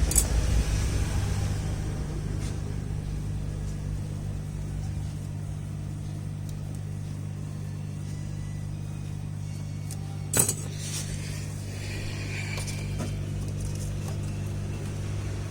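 Hot air rework blower running with a steady low hum, with one sharp click about ten seconds in.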